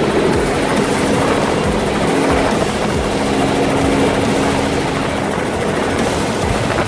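Helicopter flying low, heard from on board: rotor and engine running steadily with a constant drone.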